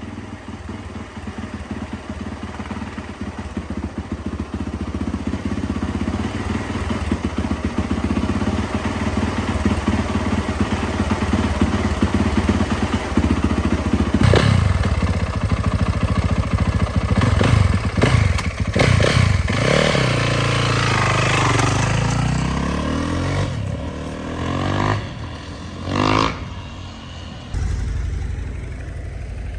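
2012 Yamaha YZ450F's single-cylinder four-stroke engine running on a freshly replaced timing chain: it idles steadily, then from about halfway it is revved several times, its pitch rising and falling.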